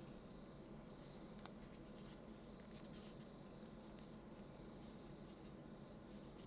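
Near silence: room tone with faint scratchy rustles and light ticks of a hand turning a vinyl figure on its plastic base.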